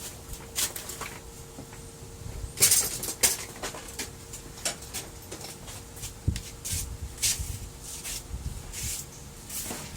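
Scattered clicks, taps and scrapes of printer parts being handled during disassembly, loudest in a cluster about three seconds in, over a faint steady hum.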